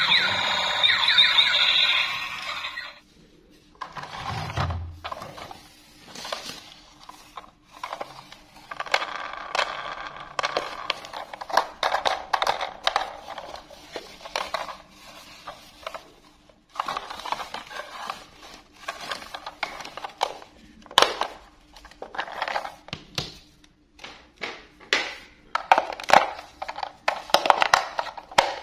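Electronic tune and siren-like sounds from a battery-operated plastic toy train, cutting off about three seconds in. Then irregular plastic clicks, knocks and scrapes as gloved hands handle the toy engine and work at its battery compartment.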